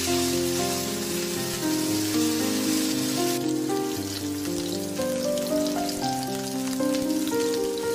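Instrumental background music with a stepping melody, over the sizzle of fried rice being stirred in a hot wok. The sizzle drops off about three and a half seconds in, leaving faint crackling.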